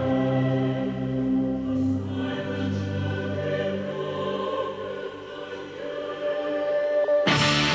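Soundtrack music with a choir singing slow, sustained lines, ending on one long held high note. Just before the end it cuts abruptly to much louder, denser music.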